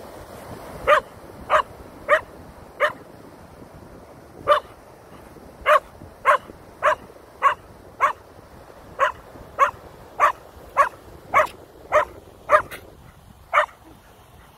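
Keeshond barking in a run of about eighteen short, sharp barks, roughly two a second, with one brief pause a few seconds in: alarm barking at a feather, which the dog fears.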